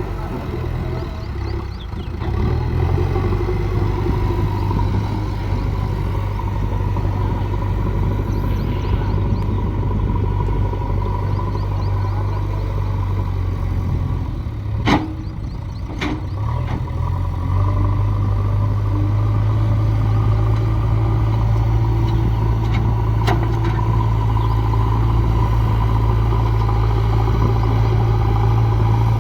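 Diesel engine of a JCB backhoe loader running steadily while at work. About halfway through it eases off and two sharp metallic clanks ring out a second apart, then the engine picks up again.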